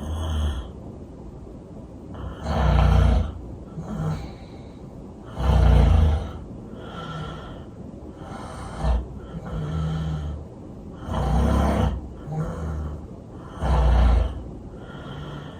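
A person snoring loudly, with four heavy, rattling snores about three seconds apart and quieter breaths between them.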